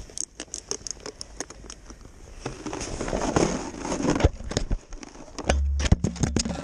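Handling noise from a camera worn against a ski jacket: a run of sharp clicks and crackles and fabric rustling, then a loud low buffeting rumble with a few knocks about five and a half seconds in as the camera jostles near the snow.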